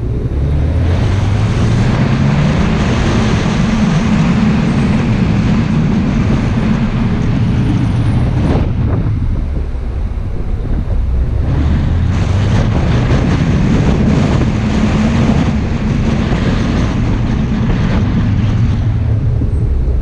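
Car engine and tyre and wind noise as the car drives down a mountain road. The engine rises in pitch as it accelerates, eases off briefly about halfway through, then rises again.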